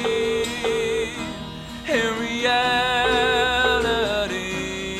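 A song with a sung lead and acoustic guitar, the voice holding long drawn-out notes on the words "in reality".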